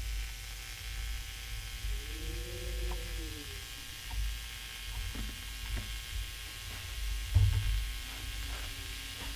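Steady low droning rumble under a hiss, the kind of ambient drone laid under an experimental film. A wavering tone rises and then falls about two seconds in, a few faint ticks follow, and there is a dull low thump about seven seconds in.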